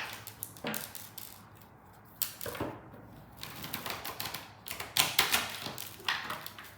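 Tarot cards being shuffled and handled: rapid, irregular clicking and flicking of card stock with a few louder snaps.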